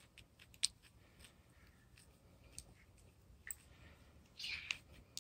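Lamb grazing, cropping and chewing grass in faint crisp snips. A sharp click comes about half a second in, and a short breathy rustle near the end.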